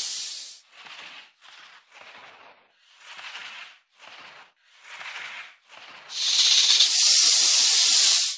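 Snake hissing: a string of short hisses, then one long, loud hiss starting about six seconds in that cuts off suddenly.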